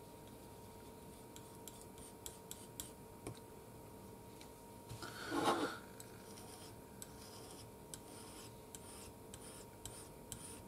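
Metal palette knife mixing oil paint on a hard palette: faint scraping with scattered light clicks of the blade against the surface. A brief, louder sound comes about halfway through.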